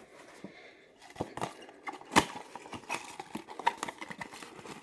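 Cardboard packaging being handled as an advent-calendar compartment is opened and its small product taken out: a run of irregular clicks, taps and light scrapes, with one sharp snap about two seconds in.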